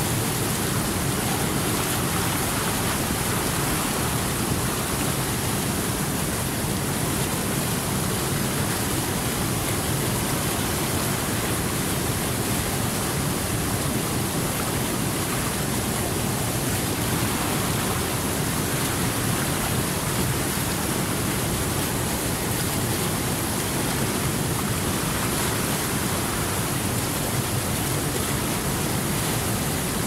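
Whitewater rapids of a river rushing over boulders: a steady, unbroken rush of water.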